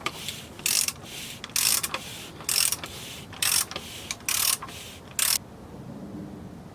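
Ratchet wrench clicking in short rasps, about one a second, as the engine's crankshaft is turned over by hand to bring the timing marks to top dead center. The clicking stops about five seconds in.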